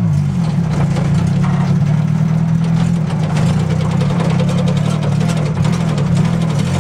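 Crosley wagon's small four-cylinder engine running, heard from inside the cab, its note mostly steady with slight rises and falls in pitch.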